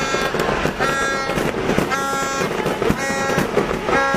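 Fireworks going off in a dense run of crackles and bangs, with a vehicle horn sounding short blasts about once a second over them.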